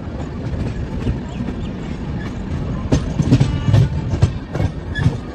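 Shatabdi Express coaches running on rail, heard from the open coach door: a steady rumble of wheels, with a run of sharp clacks from about three seconds in as the wheels cross the junction's points.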